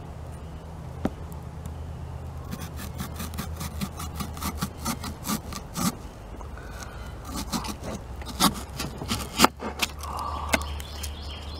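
Close-miked crunching and chewing of raw onion: irregular sharp crackles that start about two seconds in and carry on, over a steady low hum.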